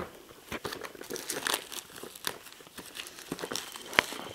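Plastic wrap being peeled off a cardboard product box, crinkling and crackling irregularly, with a sharp click about four seconds in.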